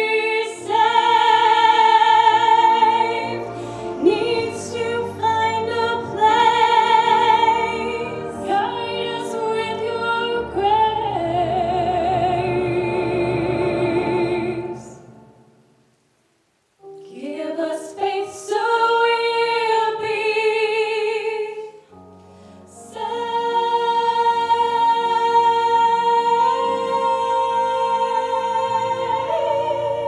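Two women singing a duet into microphones, amplified through a PA speaker, with wavering sustained notes. The sound drops out completely for about a second midway, then the singing resumes and ends on long held notes.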